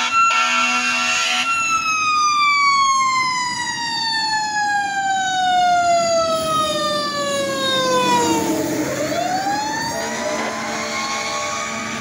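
Fire engine's siren sounding as the truck approaches. It holds a steady high tone at first, then about a second and a half in the pitch falls slowly for some seven seconds. Near the end it climbs back up again.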